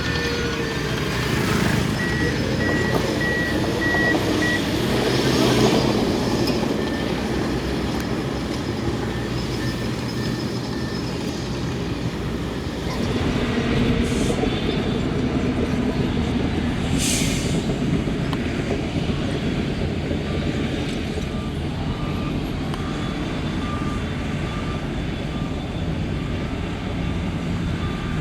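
Heavy diesel earthmoving machinery, a bulldozer and dump trucks, running steadily, with reversing alarms beeping: a higher-pitched beeper early on and a lower-pitched one starting about two-thirds of the way in. Two short hissing bursts come in the middle.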